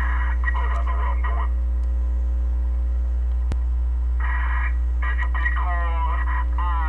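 CB radio audio from a receiver's speaker: short bursts of narrow, crackly radio sound and, near the end, a run of rising gliding tones, all over a steady low hum.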